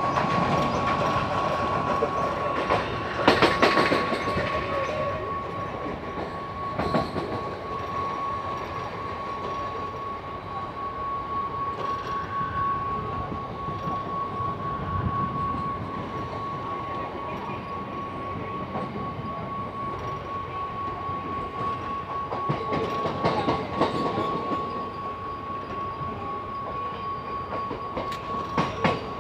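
Mumbai suburban local electric train running at speed, heard from its open doorway: a continuous rush of wheels and air with a steady high whine. Louder clacks over rail joints come a few seconds in, again about seven seconds in, and near the end.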